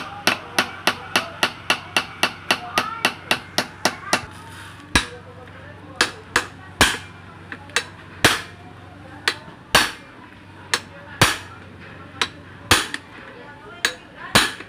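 Hammer striking metal tools set against the clutch of a Honda TMX 155 engine: rapid taps, about five a second, for the first four seconds, then slower, separate blows every half second to a second, often in pairs, on a hand impact driver seated in the clutch centre.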